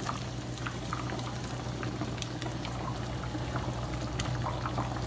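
Thick tamarind curry bubbling at a simmer in the pan, a steady hiss broken by many small pops.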